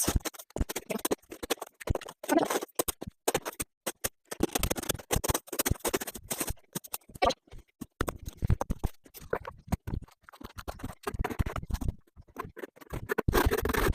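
Snow shovel scraping and chopping into packed snow: a rapid, irregular run of scrapes and knocks in clusters, with short pauses between them.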